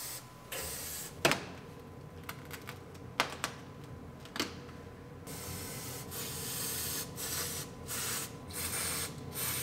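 Aerosol cavity wax being sprayed into a car door's bottom seam for rust proofing: a hissing spray, briefly near the start and then almost continuously through the second half with short breaks. A few clicks and rustles of handling come in the first half.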